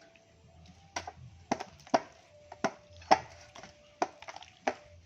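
A series of irregular, sharp clicks and taps, about ten of them, each with a brief ringing tone after it.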